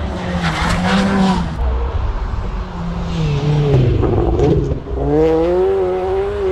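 Rally car engine running at high revs as the car takes a jump on a snowy stage. The pitch swings down and up, dips briefly about five seconds in, then climbs and holds high as it drives off.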